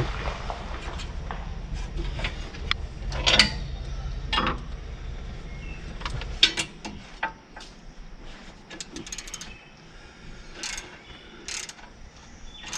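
Hand tools and metal parts on a bulldozer clinking and knocking irregularly, with a couple of short runs of quick clicks, as parts are fitted. A low rumble underneath stops about halfway through.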